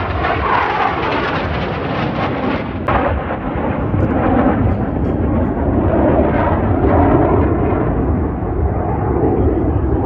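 Deep, steady rumbling roar of the Black Eagles' KAI T-50B jet trainers flying past overhead, swelling a little past the middle.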